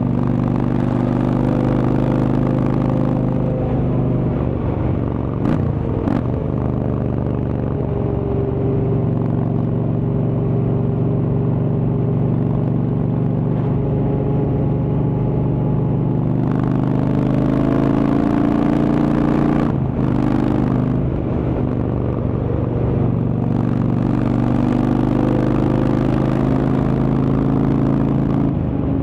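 Indian Chieftain's Thunderstroke V-twin running on the move through a Freedom Performance aftermarket exhaust, its note rising and falling with throttle. The note breaks briefly about six seconds in and again around twenty seconds in, as with gear changes.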